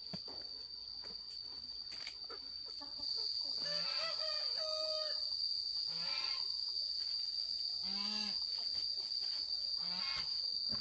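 Chicken calling in short, pitched squawks about every two seconds, starting a few seconds in, over a steady high-pitched insect drone.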